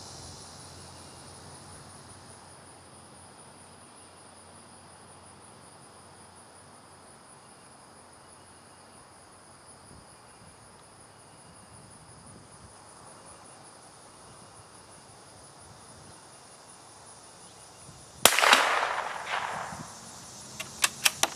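Steady trilling of insects, then about 18 seconds in a single sharp crack of a CZ 452 American .22 LR bolt-action rifle being fired, with a tail dying away over a second or so. A few quick clicks follow near the end.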